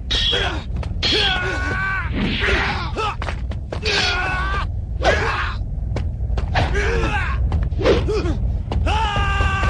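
Men grunting and crying out with effort during a sword fight, with several sharp thuds and clashes, over a steady low rumble.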